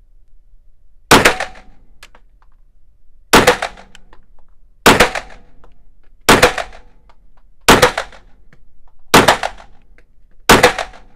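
Seven 9mm pistol shots from a Canik TP9 SFX Mete, fired singly about one and a half to two seconds apart, each followed by a short echo off the indoor range walls.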